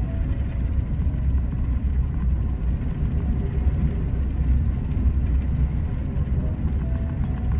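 Steady low rumble of storm wind and heavy seas on an oil tanker's deck, with the wind buffeting the microphone.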